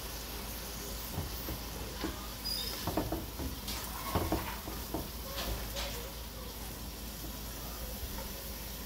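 Sliced onions sizzling in hot oil in an aluminium pot, with a wooden spoon scraping and knocking against the pot as they are stirred, in a run of knocks between about one and six seconds in.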